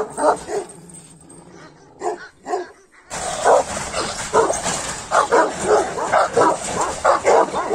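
Kangal shepherd dogs barking at each other across a fence. A few separate barks come first, then from about three seconds in a rapid run of barks, two or three a second.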